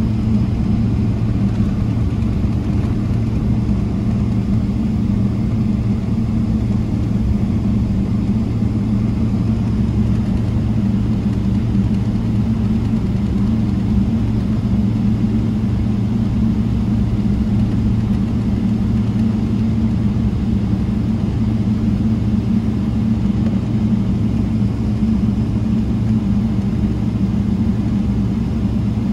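Steady low drone heard inside the cabin of a Boeing 777-300ER with its GE90 engines running, even in level throughout.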